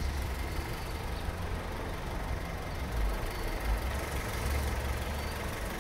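1997 Honda Civic DX's 1.6-litre four-cylinder engine idling, a steady low hum with no sharp knocks.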